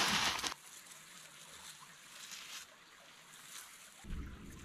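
Sandy gravel poured onto a pile, a steady hiss that stops abruptly about half a second in. Near the end comes a low rustle of a hand pressing and brushing across the gravel.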